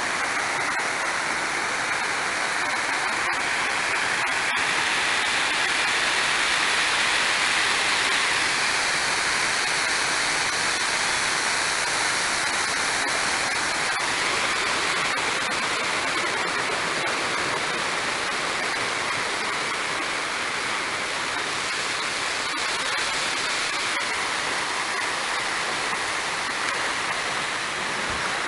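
Steady roar of tsunami surf and rushing seawater surging over the reef and flooded shore.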